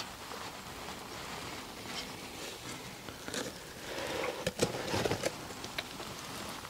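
Faint rustling with scattered small clicks, then a cluster of louder clicks and knocks about four and a half seconds in.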